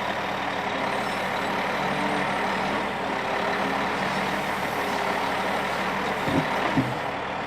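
Heavy truck engine running steadily with road noise, with two short rising sounds near the end.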